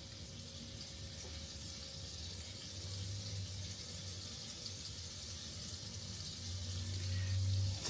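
Butter sizzling in a hot frying pan, a steady faint hiss, with a low hum that swells a few seconds in and again near the end.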